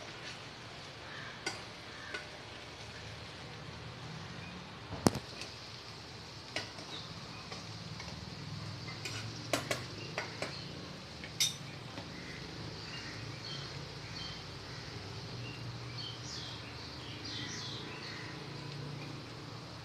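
A spoon stirring cooked poha (flattened rice) in a pot, with scattered sharp clinks of the spoon against the pot, the loudest about five seconds in, over a steady low hum.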